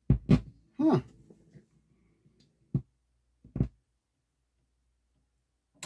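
Several separate knocks and clunks from a Pioneer PL-560 turntable as its tonearm is lifted and moved by hand after a failed auto-return. The loudest come in the first second.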